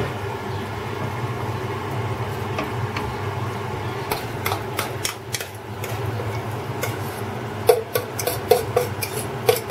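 A wooden spatula stirring and scraping food in a frying pan. Near the end comes a run of sharp, ringing knocks as a utensil scrapes and taps filling out of an enamel bowl into the pan. A steady low hum runs underneath.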